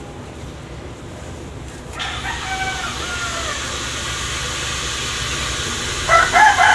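Roosters crowing: faint falling calls about two seconds in, and a louder crow near the end. A steady hiss starts about two seconds in.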